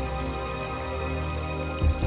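Background music of held, layered notes, with a deep bass hit coming in near the end.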